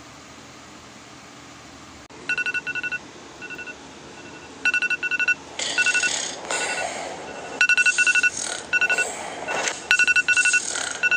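Electronic alarm beeping in short, high, steady-pitched beeps, in quick singles and pairs, starting about two seconds in. Three loud, harsh noise bursts break in over it.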